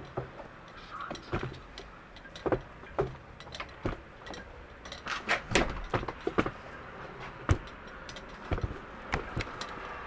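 Irregular sharp clicks and knocks of objects being handled and moved about, coming thicker in the middle and latter part, over a low steady background.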